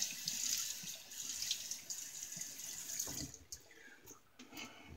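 Water running from a sink tap while a face is wetted for shaving; the flow stops about three seconds in, followed by a few light knocks.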